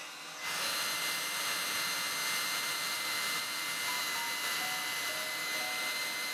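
Hair dryer blowing, coming on about half a second in: a steady rushing hiss with a steady high whine from its motor.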